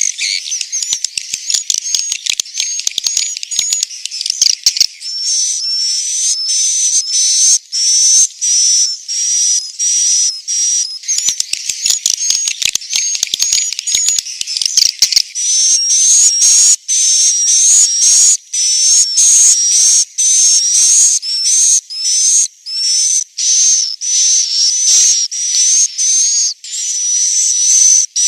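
Swiftlet roosting ('inap') call, the kind played in swiftlet houses to lure swiftlets in to stay: a rapid, unbroken run of high-pitched chirping twitters with only brief breaks.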